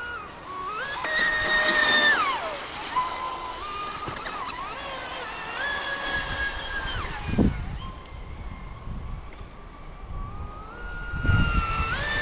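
Brushless electric motor of a Pro Boat Impulse 32 RC boat, running on 8S with a three-blade prop, whining at speed. The pitch rises as the throttle opens, holds, then drops off, three times over, with a brief low rumble from the hull and water between passes.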